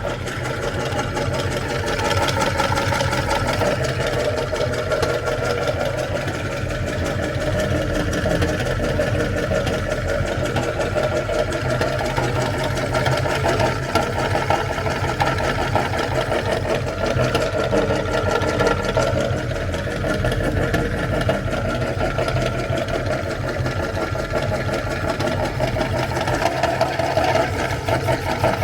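Electric meat grinder motor running steadily while grinding ice cream, a continuous fast mechanical whirr.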